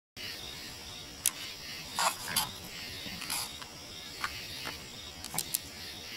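Steady hiss from a camcorder's sound track, with a handful of sharp clicks and brief higher-pitched noises scattered through it; the sharpest click comes about a second in.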